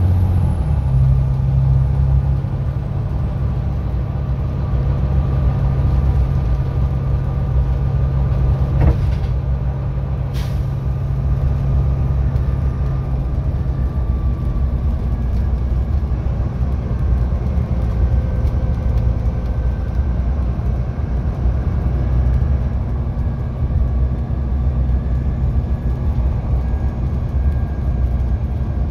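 Inside a Volvo B9TL tri-axle double-decker bus under way: its six-cylinder diesel engine runs as a steady low drone whose note shifts about a second in, with a couple of brief sharp clicks about nine and ten seconds in.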